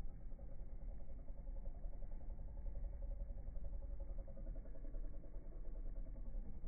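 Domestic cat purring steadily and close up while her ears are rubbed.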